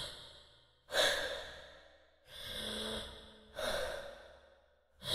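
A person's laboured, gasping breathing, typical of an asthmatic struggling for air: four sharp breaths about a second and a half apart, each starting suddenly and fading, one drawn out longer with a faint wheeze.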